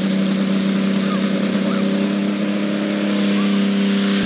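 Turbocharged diesel engine of a light pro stock pulling tractor running steady and loud on the start line. A thin high whine climbs steadily in pitch over the last second or so as the turbocharger spools up.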